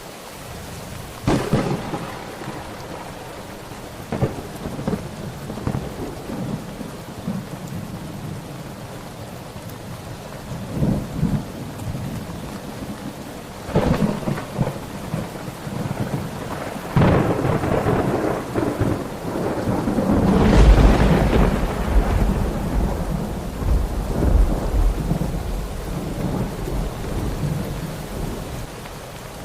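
Thunderstorm: steady heavy rain with several sharp thunder cracks, and a long, deep rolling rumble of thunder about two-thirds of the way through that slowly dies away.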